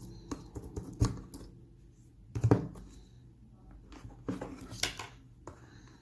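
Slime being squished and pressed by hand, giving bursts of small sticky clicks and pops. There are three clusters: one in the first second and a half, one near the middle, and one later on.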